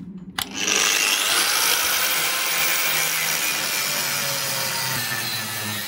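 Electric angle grinder with a cut-off disc cutting through a steel frame tube. The spinning motor hums at first, then the loud steady grind of the disc in the steel starts about half a second in.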